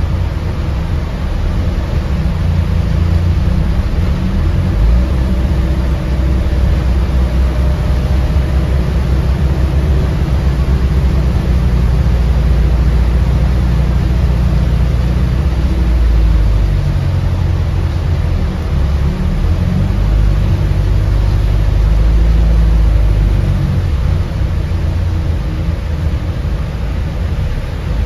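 Interior noise of an Alexander Dennis Enviro400H City hybrid double-decker bus on the move: a steady low rumble of drivetrain and road noise that swells and eases as the bus drives.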